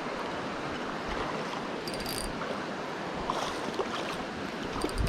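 River current rushing steadily, with a few faint clicks and splashes over it.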